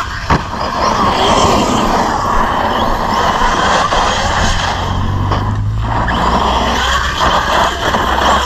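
Arrma Big Rock 6S RC monster truck driven hard on loose dirt: its electric motor whines while the tyres churn and throw dirt. There is a sharp knock about a third of a second in.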